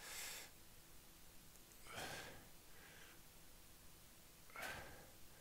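A man breathing softly, three audible breaths about two seconds apart.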